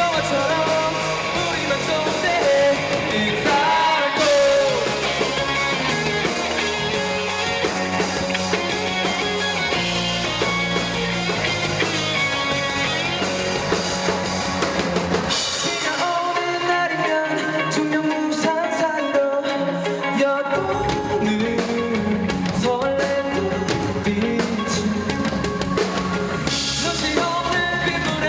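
Rock band playing live with a singer: drums, guitar and vocals. About 16 seconds in, the bass drops out and the band thins for a few seconds, then the full band comes back in around 20 seconds.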